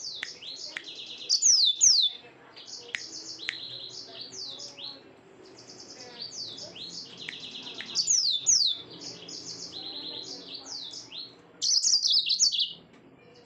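Yellow-fronted canary singing: a long, varied song of rapid high trills and quick down-slurred notes, with a few short pauses and louder bursts about two seconds, eight seconds and twelve seconds in.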